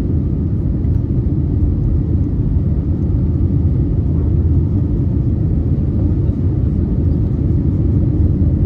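Airbus A321neo's engines at takeoff thrust heard from inside the cabin just after liftoff, a steady, loud low rumble.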